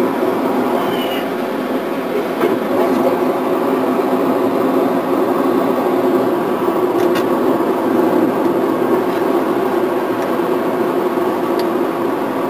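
Steady drone of a car driving at highway speed, heard from inside the cabin.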